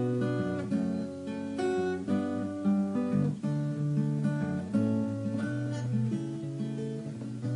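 Background music: an instrumental break of strummed acoustic guitar chords, with no singing.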